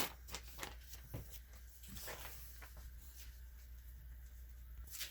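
Faint handling sounds: a few light clicks and short knocks, most of them in the first two seconds and again near the end, over a steady low hum.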